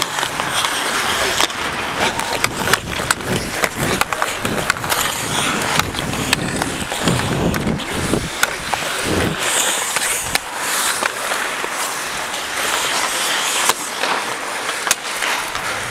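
Ice hockey skate blades scraping and carving across the ice in a continuous rough hiss, broken by frequent sharp clicks of sticks and puck.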